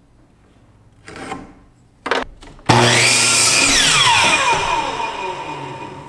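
Hitachi sliding compound miter saw starting abruptly about two and a half seconds in and cutting through a 2x4. The blade then spins down after the trigger is released, its whine falling in pitch and fading. A couple of short knocks come just before the start.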